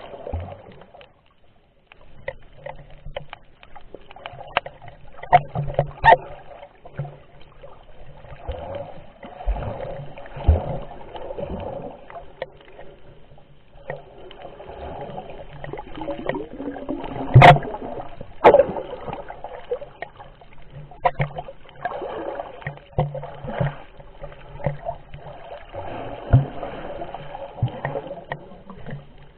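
Underwater sound picked up by a camera held below the surface: muffled sloshing and gurgling water that swells and fades, broken by irregular sharp clicks and knocks, the loudest a little past halfway through.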